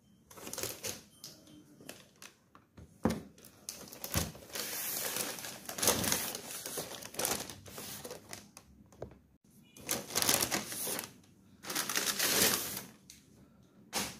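A shopping bag rustling as it is handled on a desk, in irregular bursts, with a few sharp knocks and clatter of things set down on the desktop.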